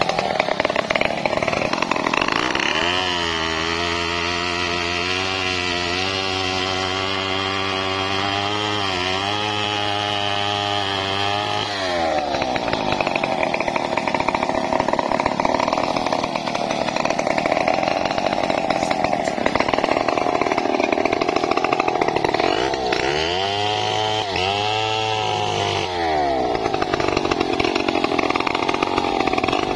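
Stihl two-stroke chainsaw running: it drops from high revs to a low, steady idle for about ten seconds, then goes to full throttle and cuts through a felled tree trunk under load. Near the end the throttle is blipped up and down twice before it cuts again.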